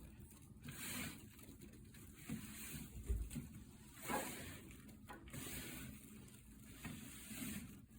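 Faint rustling and light knocks from handling a cordless cellular blind after its lift cord was re-threaded, with a soft low thump about three seconds in.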